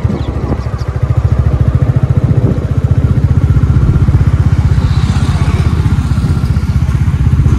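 Royal Enfield Classic 350's single-cylinder engine running at low speed, its exhaust giving a steady, even beat of low pulses.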